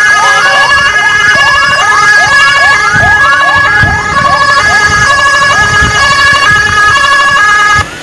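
Emergency vehicle sirens sounding together: a steady high tone under a fast, repeating rising yelp of about two to three sweeps a second. They cut off suddenly near the end.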